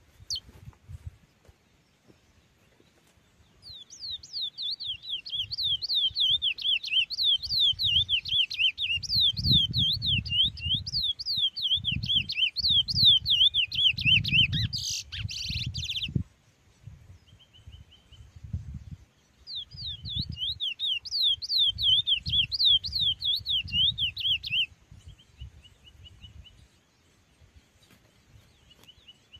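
Curió (chestnut-bellied seed finch) singing a fast series of slurred, whistled notes in two long bouts, the first starting a few seconds in and running about twelve seconds, the second shorter after a brief pause. A brief sharp noise cuts in near the end of the first bout, and low rumbles sit underneath.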